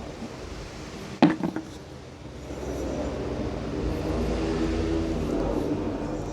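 A couple of sharp knocks of a spade striking the soil about a second in, then a road vehicle's engine hum that swells and fades as it passes.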